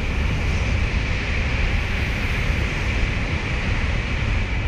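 A Tokaido Shinkansen train running through a long corrugated-metal tunnel shed, heard as a loud, steady rushing noise with deep rumble.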